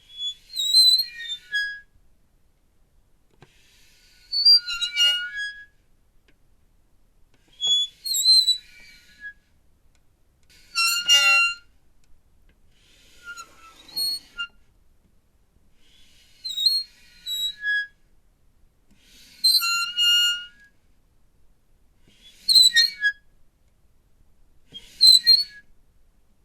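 Squeaky metal hinge squealing nine times as it swings back and forth, each a high, wavering squeak lasting a second or two, about every two and a half to three seconds.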